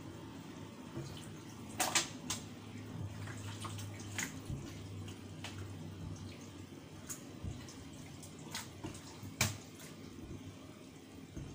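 Kitchen sounds: running or splashing water with a few sharp clinks of pots or utensils, the loudest about two seconds in, over a steady low hum.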